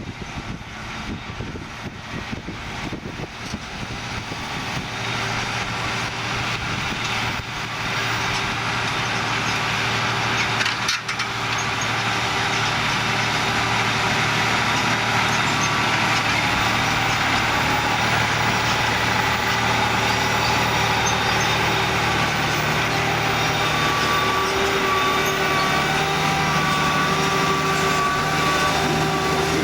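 John Deere 7280R tractor's six-cylinder diesel engine running under load, pulling an eight-furrow plough. It grows louder over the first twelve seconds or so, then runs steady and loud, its note shifting slightly near the end.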